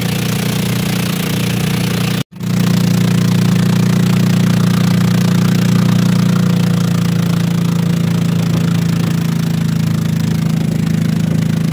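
Engine of a motorized bangka (outrigger boat) running steadily under way, a loud constant drone; it drops out for an instant about two seconds in.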